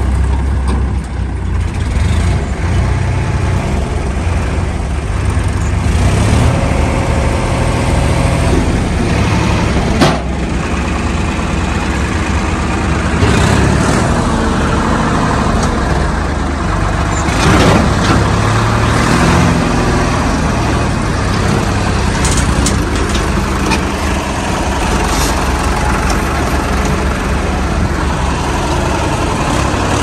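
Tractor diesel engines running steadily as a tractor hauls a trolley across the field, with one sharp knock about a third of the way through.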